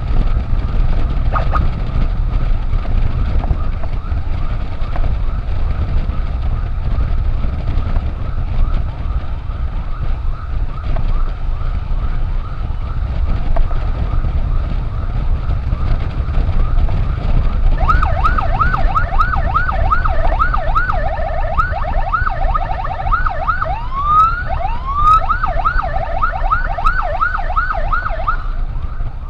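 Steady low rumble of a vehicle on the move. About two-thirds of the way in, an electronic emergency siren starts in a rapid yelp, about three rising sweeps a second. It breaks briefly into a slower rising wail, returns to the yelp, and stops shortly before the end.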